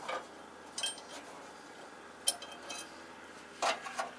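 A few scattered light metal clinks and taps of hand tools and hinge bolts being handled, with a louder knock near the end.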